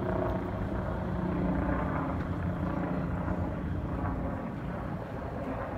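Steady low engine drone of a boat underway, heard from aboard, with a held low hum and no breaks.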